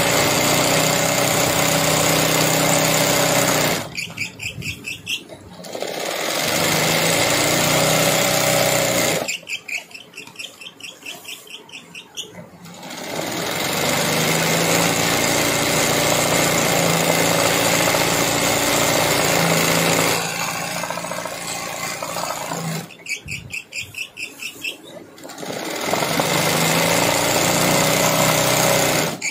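Sewing machine doing free-motion embroidery, running fast in four long bursts with a steady motor whine. Between the bursts it slows to a quieter, rapid clatter of single stitches.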